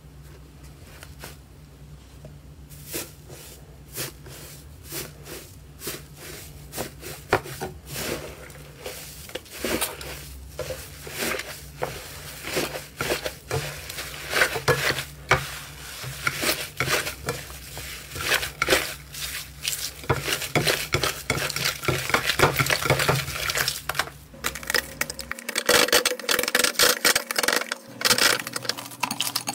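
Hands squeezing and tearing apart a crumbly orange 'tofu dregs' slime, a run of crackling pops that starts sparse and grows dense and louder after a few seconds. A low steady hum underneath stops a few seconds before the end.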